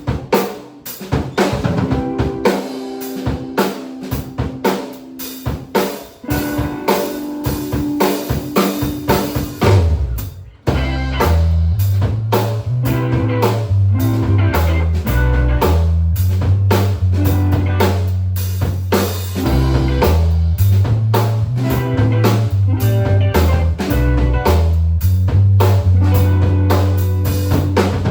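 Live rock band playing an instrumental opening. For about ten seconds a drum kit plays with a few held notes over it. After a brief break the full band comes in with a heavy low bass line under the drums.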